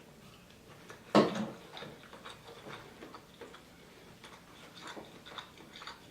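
Close-miked eating sounds: a sharp mouth smack about a second in, then a steady run of small wet clicks and smacks from chewing.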